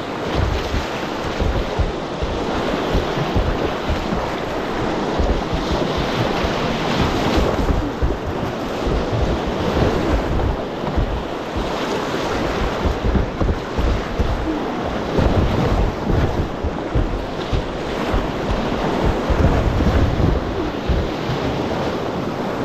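Whitewater rapids rushing and splashing around a kayak's bow, with wind buffeting the microphone in uneven low gusts.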